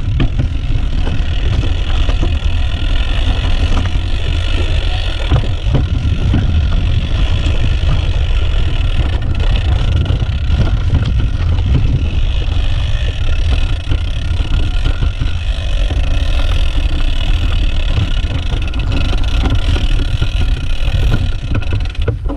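Mountain bike riding downhill over a rocky trail: a steady low rumble of wind buffeting the on-bike camera's microphone, mixed with the knobby tyres rolling over stones and brief knocks and rattles from the bike. Near the end the noise drops off as the bike slows.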